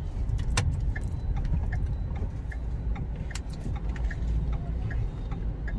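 Steady low rumble of a 2017 petrol Ford EcoSport running, heard from inside the cabin, with scattered light clicks and rattles.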